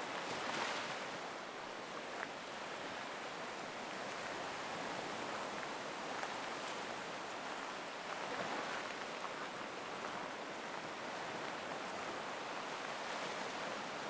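Black Sea surf washing onto the beach, a steady wash of waves that swells slightly about half a second in and again around eight seconds in.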